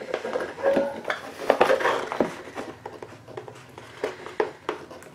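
Irregular clicks, snips and rustling as a doll's cardboard-and-plastic box insert is cut open and handled. A dog barks in the background.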